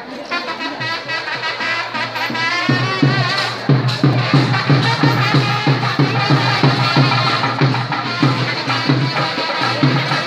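Drums and a high wind instrument playing: a wavering melody, joined about three seconds in by a steady drumbeat of roughly three strokes a second.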